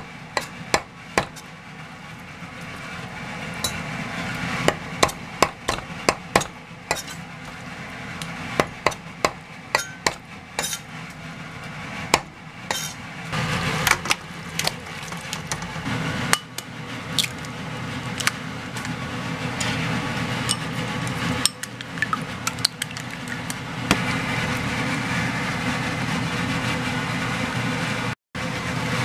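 Broad-bladed kitchen knife chopping raw chicken on a plastic cutting board: sharp irregular knocks, about one or two a second, through the first half. About halfway the chopped pieces are scraped and tipped into a metal pot, with a few clinks and a steady hiss in the background afterward.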